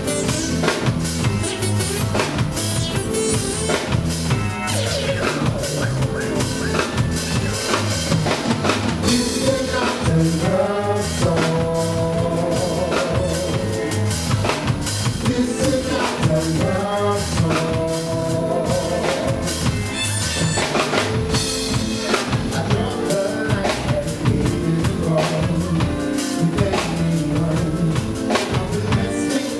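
Soul band music: a drum kit keeps a steady beat under other instruments, with singing.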